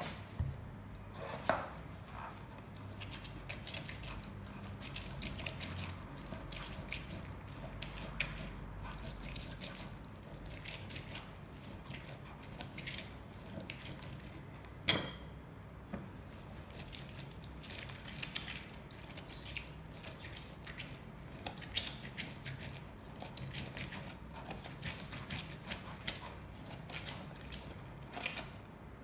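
Orange halves being pressed and twisted by hand on a plastic citrus reamer: faint squishing and rubbing with scattered small clicks and knocks, and a sharper knock about fifteen seconds in, over a low steady hum.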